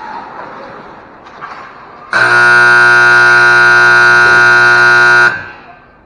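Hockey arena's period-end horn sounding as the game clock runs out: one loud, steady blast of about three seconds, starting about two seconds in and cutting off sharply.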